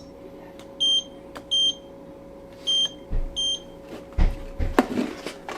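Four short, high electronic beeps in two pairs from a timing-belt tension meter taking readings on a Ducati 848 engine's belt, followed by a few low knocks and clatters of tools and parts being handled.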